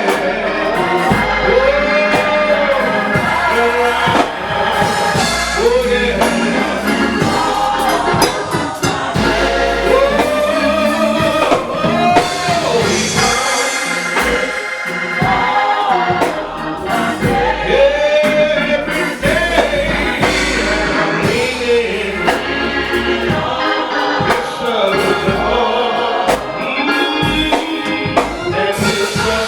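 Gospel music: sung vocals with a choir over instrumental backing.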